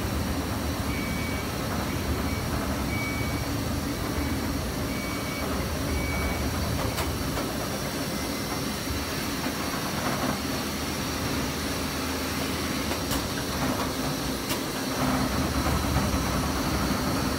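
Steady hum and whir of circuit-board assembly machines (surface-mount component placers and board handlers) running on a production line, with a string of about six short electronic beeps in the first several seconds and a few sharp clicks later on.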